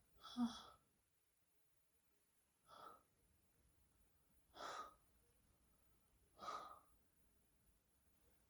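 A dozing woman's breathing: four short, soft breaths about two seconds apart, the first the loudest.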